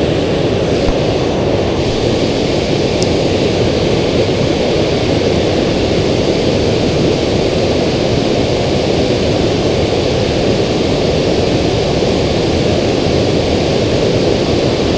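Steady roar of water pouring over a river spillway.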